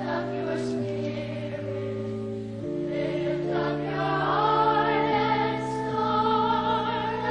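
A choir singing a slow Christmas hymn in long held chords, the harmony shifting every second or two.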